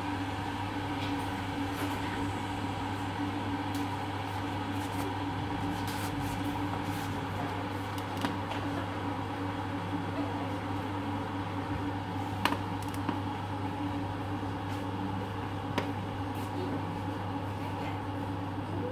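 Electric jug kettle heating water: a steady hum and hiss, with a few faint clicks, the loudest about twelve seconds in.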